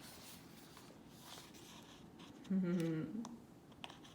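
Faint paper rustling and light clicks from handling the pages of a picture book, with one short vocal sound from the woman reading, lasting under a second, about two and a half seconds in.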